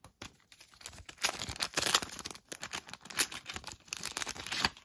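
Foil wrapper of a Match Attax trading-card pack crinkling and tearing as it is pulled open by hand, in a run of irregular crackles that grows busier after about a second.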